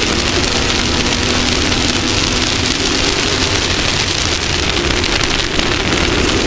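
Off-road race vehicle's engine running steadily at speed, with a dense rush of wind and terrain noise over it.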